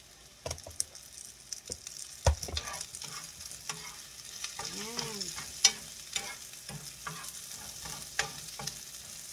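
Sliced carrots, onions and garlic sizzling in hot oil in a frying pan while being stirred, the utensil knocking and scraping against the pan every so often, with the sharpest knocks a couple of seconds in and again past the middle.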